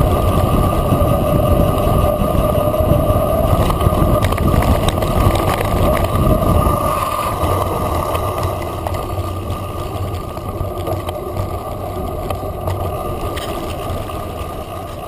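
Mountain bike rolling fast down a dirt track: a steady rush of wind on the onboard camera's microphone mixed with tyre noise and light rattles. It eases off and gets quieter in the second half.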